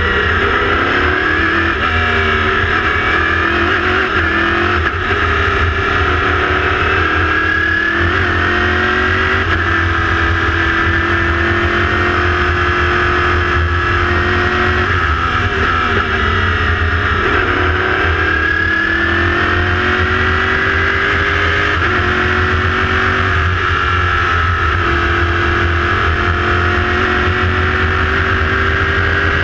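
Chevrolet V8 of an LMPC prototype race car, heard from the open cockpit. It revs up through the gears, with the pitch climbing and dropping back at each shift, and falls away with downshifts under braking before pulling hard again.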